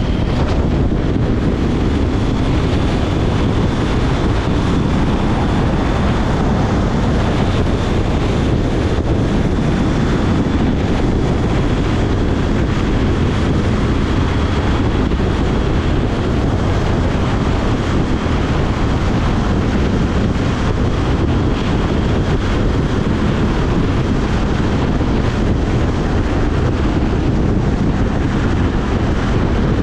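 Loud, steady wind rush on the microphone over the engine and road noise of a KTM 790 Duke motorcycle cruising at highway speed, with a faint high whistle through much of it.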